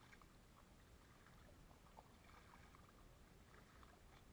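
Near silence, with faint scattered drips and light splashes from a kayak paddle dipping in calm water.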